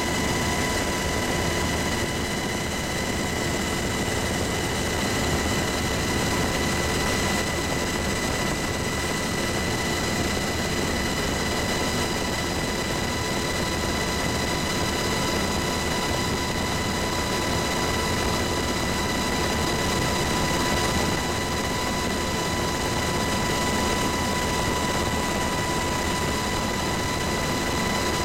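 Helicopter in flight heard from inside the cabin: a steady, dense rush of rotor and engine noise with a constant high whine over it.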